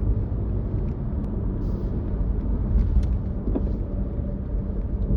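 Steady low road and engine rumble inside a car's cabin as it drives along the highway, with a faint steady hum and a few light ticks.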